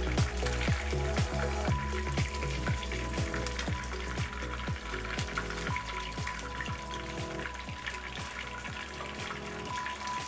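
Hot oil sizzling and crackling around whole threadfin bream in a frying pan. Background music with a steady beat plays over it.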